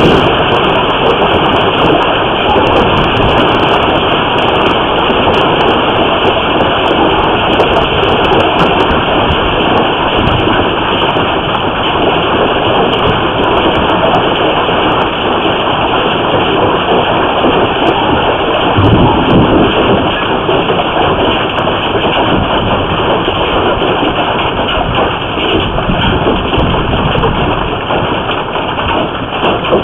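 Hail and heavy rain pounding on the house and cars, a loud, dense, steady roar with sharp ice impacts clicking through it, thickest in the first several seconds.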